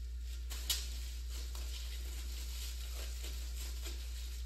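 Light crinkling and small clicks of plastic packaging being handled, with one sharper click a little under a second in, over a steady low hum.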